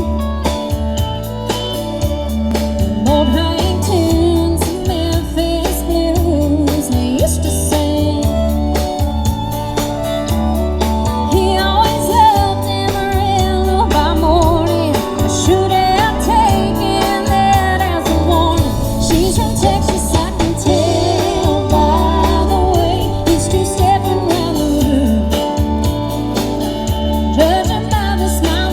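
A song with singing over a steady bass line.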